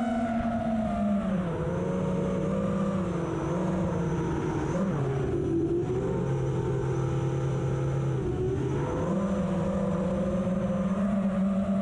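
FPV quadcopter motors whining steadily. The pitch drops as the throttle comes off about a second and a half in, dips lower in the middle, and climbs back up about nine seconds in.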